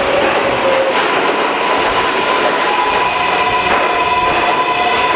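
R143 subway train pulling into an underground station and slowing, with a steady rumble of wheels on rail. A whine falls in pitch during the first second, then a steady high squeal holds from about a second in.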